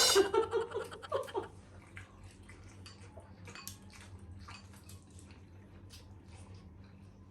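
Close-miked wet chewing and lip-smacking of people eating saucy spare-ribs masala: an irregular run of small moist clicks. A voice trails off in the first second or so.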